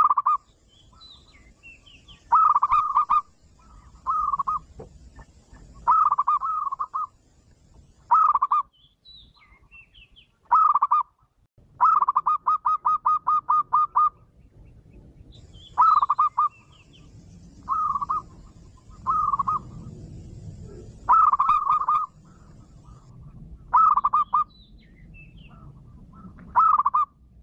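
Zebra dove (perkutut) cooing its 'manggung' song: short phrases of quick staccato coo notes every couple of seconds, with one longer rattling run of about a dozen notes about halfway through.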